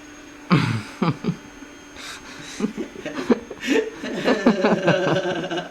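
People laughing and chuckling in short bursts, growing more sustained near the end.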